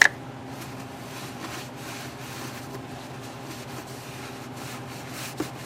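A lathe running steadily while 220-grit wet sandpaper rubs against the spinning piston, with a sharp click at the very start.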